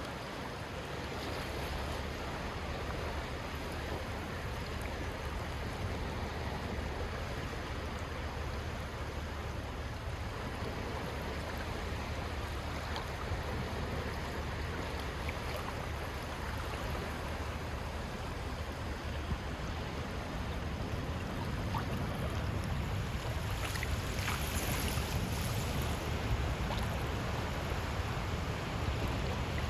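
Calm sea waves washing onto a beach strewn with shells, a steady wash that grows a little louder and brighter about two thirds of the way through.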